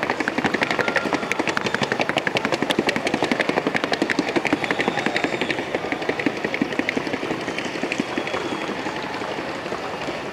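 Colombian paso fino stallion's hooves drumming out the breed's rapid, even four-beat gait on a wooden sounding board. The hoofbeats grow somewhat fainter over the second half.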